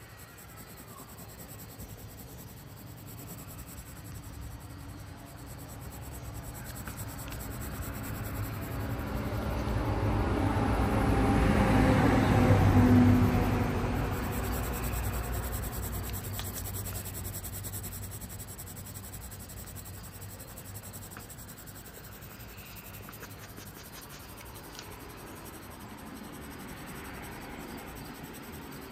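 Graphite pencil scratching and shading on paper, close to the microphone, swelling louder toward the middle and then fading back down.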